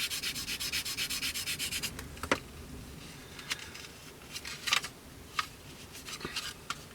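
Medium-grade sanding sponge worked lightly over Tamiya filler on a plastic model kit's wing leading edge, in quick short strokes of about seven a second. The sanding stops about two seconds in, followed by a few light taps and scrapes.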